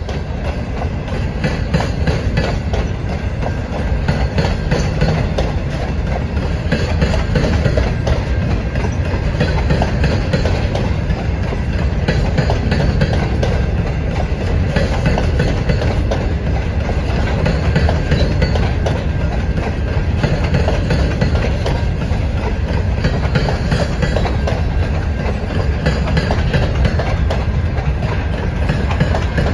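Freight train of open-top hopper cars rolling steadily past, the low rumble of steel wheels on the rails with a running clatter of wheel and rail-joint clicks.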